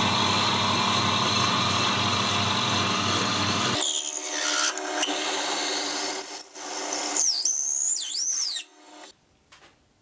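Wood lathe running while a twist drill bit held in a drill chuck bores into a walnut pen blank spinning in the lathe chuck. About four seconds in the low motor hum drops away while the cutting noise goes on, with squealing rising and falling pitches near the end, and it all stops about nine seconds in.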